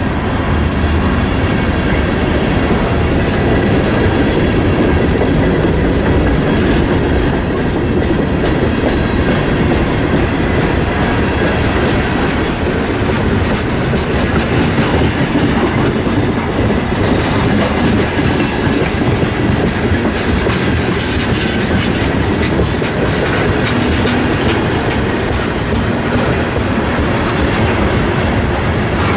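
A freight train of tank cars and covered hoppers rolling past, a steady heavy rumble with the clickety-clack of wheels over rail joints, the clicks coming thicker in the second half.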